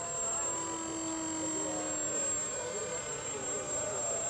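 Radio-controlled scale Short SA6 Sealand flying boat taxiing on the water, its two propeller motors running with a steady hum whose pitch sags slightly.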